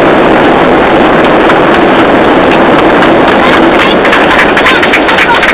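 Loud, steady cabin noise inside a Boeing 737-800 rolling out on the runway after landing, spoilers up: the rush of the engines and airflow. From about four seconds in, a quick, irregular run of sharp knocks or clicks joins it.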